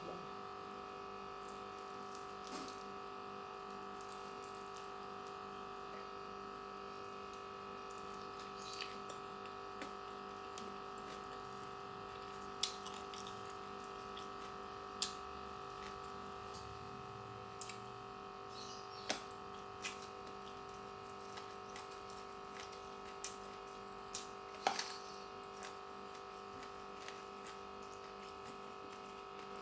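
A person eating fried gourami and rice by hand: scattered short soft clicks and smacks of chewing and fingers on the plate, about a dozen across the stretch, over a steady background hum.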